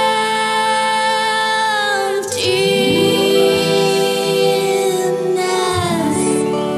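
Music with long held notes, sliding down in pitch about two seconds in and again near six seconds.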